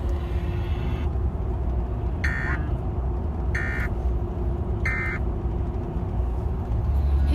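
Emergency Alert System end-of-message signal on FM radio: three short bursts of the buzzy digital data tone, about 1.3 seconds apart, starting about two seconds in. They mark the end of the severe thunderstorm warning. A steady low rumble runs beneath.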